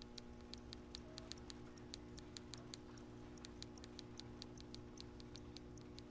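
Faint, quick clicking at an uneven pace, about four or five clicks a second, over a steady low hum.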